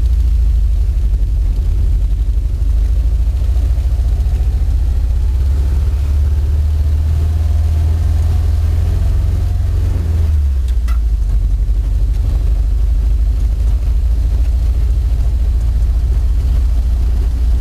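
Ford 100E side-valve four-cylinder engine in a 1952 Fordson E83W pickup, running steadily and heard from inside the cab as the truck drives along. Its low note changes about ten seconds in.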